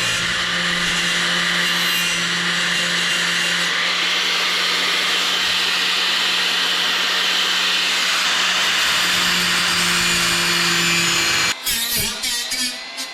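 Disc grinder sanding down the edge of a fiberglass visor: a steady motor whine with the disc rasping against the fiberglass, stopping about eleven and a half seconds in.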